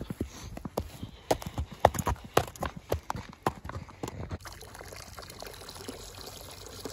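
Horse's hooves clip-clopping in sharp, irregular strikes that stop about four seconds in.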